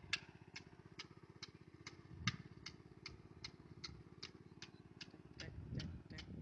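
Rice transplanter running: its small engine drones steadily under a regular sharp clicking, about two and a half clicks a second.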